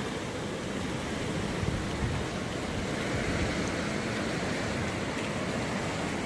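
Hurricane wind blowing steadily with rain, a continuous rushing noise with no distinct events.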